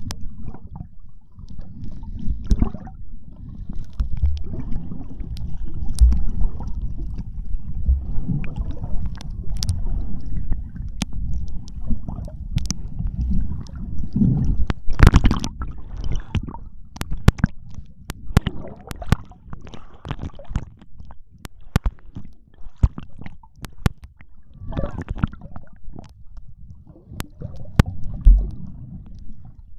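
Muffled underwater sound picked up by a hand-held camera under the sea: a constant low rumble of moving water with many sharp clicks and knocks, and a few brief louder bursts.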